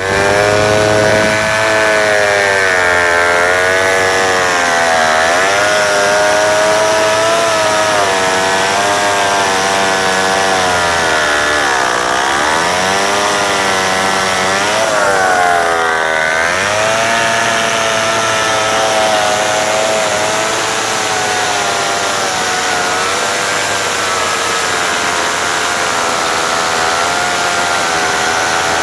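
Vintage Mono chainsaw with a Power Products AH-81 two-stroke engine of about 130 cc and a large Tillotson carburettor, running at high throttle while cutting through a log with chipper chain. The engine pitch sags several times as the chain bites into the wood and picks back up, then holds steadier.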